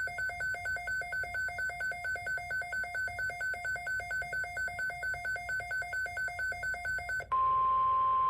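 Rapidly pulsing two-tone electronic beeping, about four beeps a second. About seven seconds in it gives way to a louder, single steady tone: the NOAA Weather Radio 1050 Hz alert tone that heads a severe-weather broadcast.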